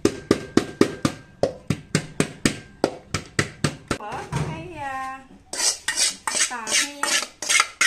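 A wooden pestle pounding garlic, chilli and shallot roots in a metal pot, sharp even knocks about four a second for about four seconds. Then metal clinking and scraping as the pot is tipped out over a bowl.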